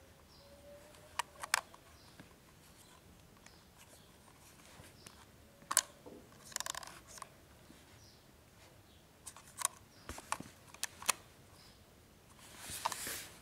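Handling of a Sony HDR-CX580 camcorder: sharp plastic clicks in small groups and a couple of short scraping rubs as its small plastic covers are pushed, flipped open and snapped shut.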